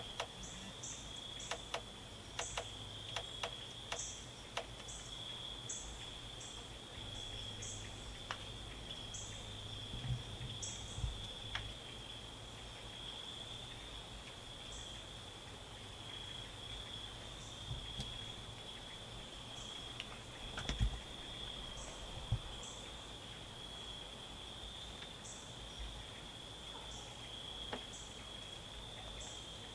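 Insects trilling in a steady, continuous high buzz, with short higher chirps repeating irregularly over it. A few faint clicks and low thumps, the loudest about two-thirds of the way through.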